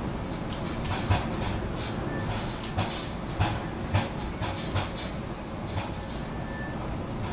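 Storm-surge surf and storm wind making a steady roar, broken by a string of irregular knocks and thuds.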